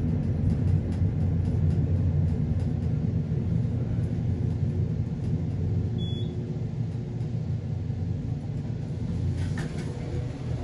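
High-speed passenger elevator car rumbling steadily as it rides up, easing slightly in its second half. A single short high beep about six seconds in marks its arrival at the top floor, and the door slides open near the end.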